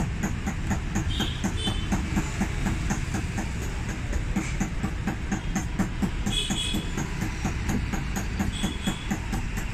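Steady, rhythmic machinery rumble with a fast, regular beat, and a few brief high chirps over it.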